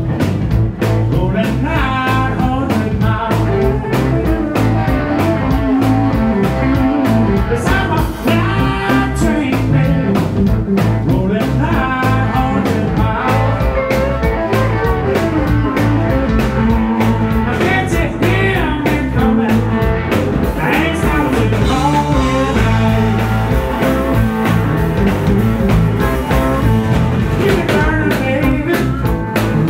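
Live blues band playing: electric guitars with bending lead lines over electric bass and a drum kit keeping a steady beat.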